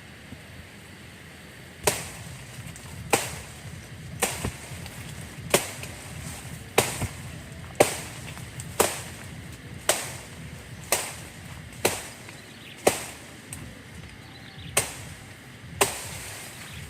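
Wood being chopped with a blade: a dozen or so sharp strokes about a second apart, starting about two seconds in.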